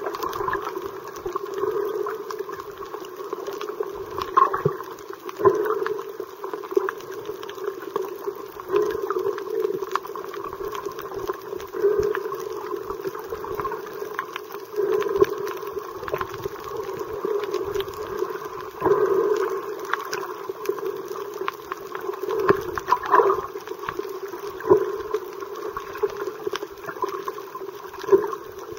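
Muffled underwater noise picked up by a submerged camera: a steady, surging rush of moving water, with many short clicks scattered through it.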